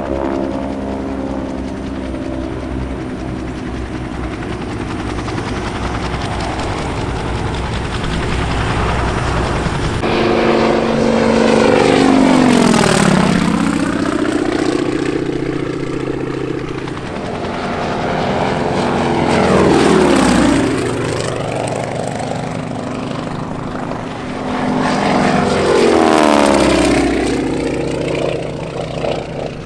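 Radial engines and propellers of T-6 Texan and BT-13 Valiant warbirds running overhead in formation, a steady drone. Then three loud low passes by single planes about seven seconds apart, each swelling as the plane goes by and fading away.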